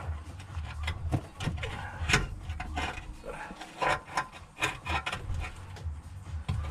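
Irregular knocks, clicks and scraping as the failed electric power steering pump of an R53 Mini Cooper S is worked loose and pulled out of the engine bay, its housing rubbing and bumping against the surrounding parts.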